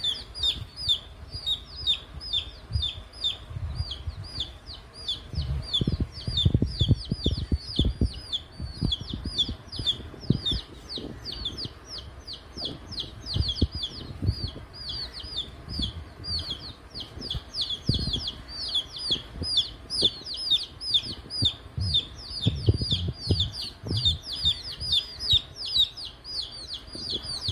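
Chicks peeping without a break: many short, high, falling chirps, several a second, from a brood of domestic chicken chicks. Low thumps and rustling come and go underneath.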